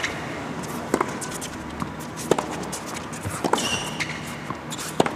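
Tennis rally on an indoor hard court: sharp racket-on-ball hits about every second to second and a half, with a short high sneaker squeak about three and a half seconds in.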